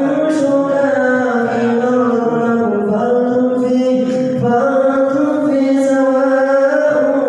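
A man's solo voice chanting in long, drawn-out, ornamented notes, in the melodic style of Islamic vocal recitation. The notes are broken by short pauses for breath.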